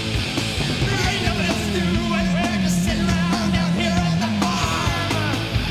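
Rock song played from a vinyl test pressing: full band, with a wavering lead line that dips and rises about twice a second from about a second in until near the end.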